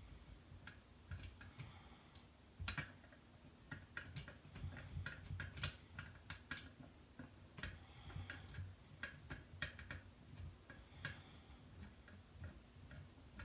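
Faint, irregular metallic clicks and ticks of a hand tool working on the screws that hold a McCulloch chainsaw's crankcase halves together.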